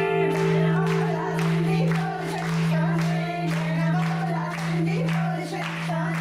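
Music: singing over a steady, held low drone note.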